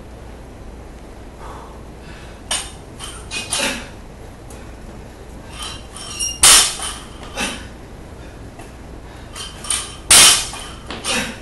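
Loaded barbell with bumper plates and small steel change plates clanking as it is gripped and shifted on a rubber platform: a string of sharp metallic clanks and rattles, the two loudest about six and ten seconds in.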